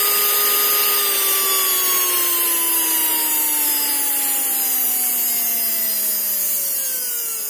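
Small brushed DC motor, driven by a PWM speed controller, whining at full speed and then, from about a second in, slowly winding down. The whine falls steadily in pitch as the controller's soft-stop ramps the motor's speed down.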